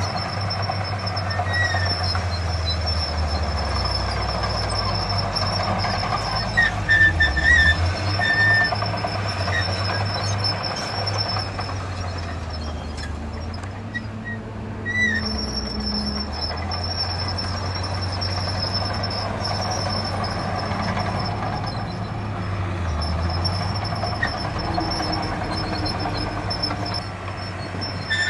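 Heavy diesel earthmoving machinery running steadily, its engine note dipping briefly a few times, with a few short high squeaks about seven seconds in.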